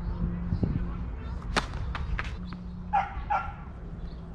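A dog barks twice in quick succession about three seconds in, after the sharp smack of a tennis ball about a second and a half in.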